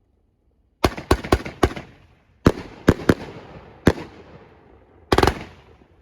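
Fireworks going off: a run of sharp bangs about a second in, each trailing a long echo, then more single bangs spaced out, and a quick rattling cluster of reports near the end.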